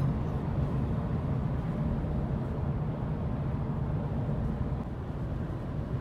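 Steady low rumble of road and engine noise inside a car cruising at freeway speed.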